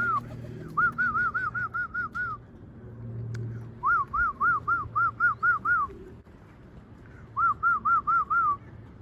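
A person whistling to call racing pigeons in to the loft to feed: runs of quick, evenly repeated short whistled notes, each note rising and falling, heard three times.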